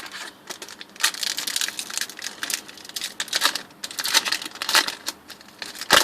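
A foil booster-pack wrapper crinkling and crackling as it is handled and torn open, with a dense run of crackles from about a second in and a loud crackle at the end.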